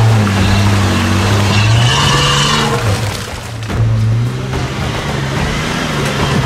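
Off-road 4x4's engine running and revving, with a short dip in loudness about three seconds in.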